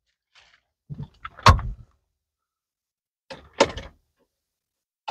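Two short clusters of clunks and clicks from handling inside the cabin of a Tata Safari: the louder one about a second in, with a dull low knock under it, and a lighter one about three and a half seconds in.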